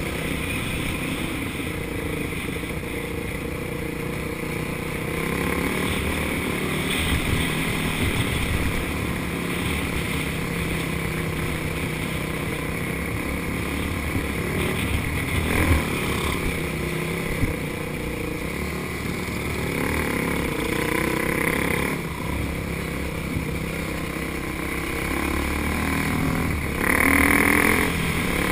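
Kawasaki KX125 two-stroke motocross bike running along a dirt trail, heard from on board, its engine note rising and falling as the rider works the throttle. A brief sharp knock comes a little over halfway through, and there is a louder rev near the end.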